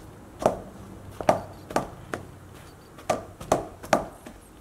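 Potato masher pushed down through hot boiled potatoes in a stainless steel bowl, knocking against the bowl about seven times at an uneven pace with soft squashing between the strokes.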